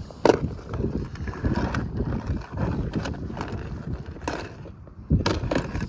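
Wind rumbling on the microphone, with several sharp clicks and knocks from small die-cast toy cars being handled and set down in a hard plastic storage box.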